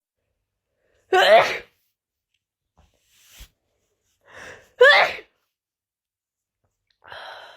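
A person sneezing twice, loud and short, about three and a half seconds apart, with a quick sharp intake of breath just before the second sneeze. A softer breathy sound follows near the end.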